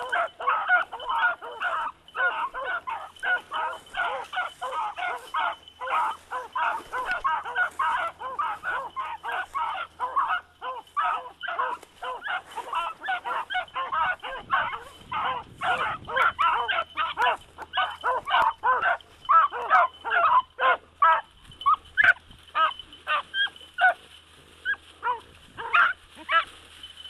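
Several dogs barking and yipping rapidly and almost without a break, thinning out to scattered separate barks over the last few seconds.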